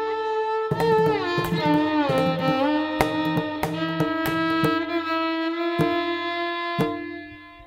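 Instrumental background music: a melody with sliding notes over a steady low drone, punctuated by sharp percussive hits, fading out near the end.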